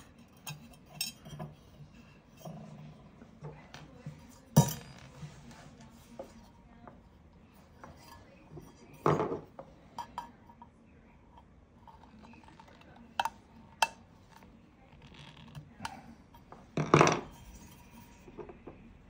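A screwdriver and small metal screws and spacers clicking and clinking against a brass barometer case as the screws are worked out. Scattered light ticks, with a few louder clacks about 4.5, 9 and 17 seconds in.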